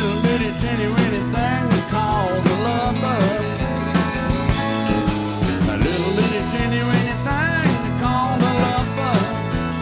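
Live country band playing: an electric guitar line with bending, wavering notes over electric bass and drums.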